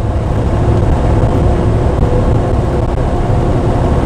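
Heavy truck's engine running, heard inside the cab as a steady low rumble with a faint hum over it.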